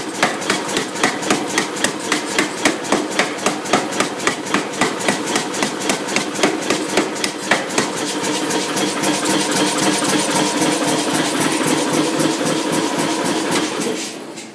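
Power hammer with drawing dies striking a red-hot mild steel bar to draw a taper: about four heavy blows a second, then faster blows that run together over the hum of the hammer's motor. The blows stop just before the end.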